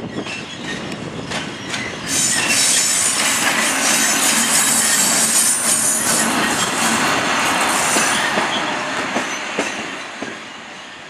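An SNCF electric locomotive passing close by, its wheels knocking over rail joints and points. About two seconds in it gets much louder, with a high-pitched wheel squeal over the running noise, and it fades toward the end.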